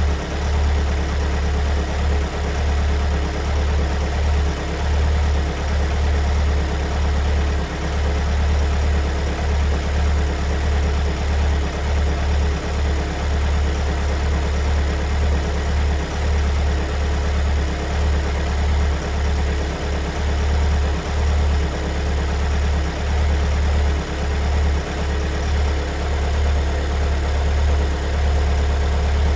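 Kia Sorento 2.2 diesel four-cylinder engine idling steadily after a cold start, a cold-start sound the owner doubts is normal.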